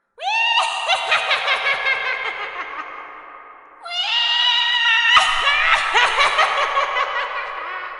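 Witch cackle sound effect: a high-pitched voice laughing in rapid pulses, in two bursts, each trailing off. The second starts about four seconds in.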